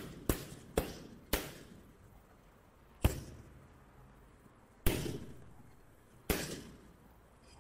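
Boxing gloves smacking into focus mitts. There is a quick run of four punches in the first second and a half, then three single punches about one and a half seconds apart, each with a short echo.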